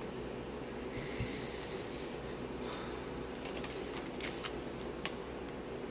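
Plastic cover sheet of a diamond painting canvas rustling as it is slid across a table, with a hissing swish about a second in and then several short crinkles and taps. A steady room hum runs underneath.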